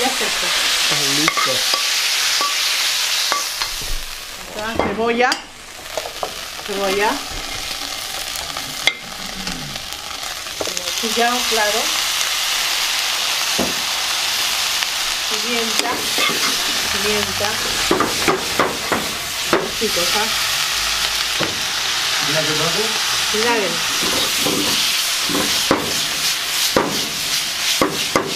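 Beef for lomo saltado stir-frying in a hot pan: steady loud sizzling, with the clatter and scrape of a utensil tossing the meat against the pan. The sizzle dips briefly about five seconds in.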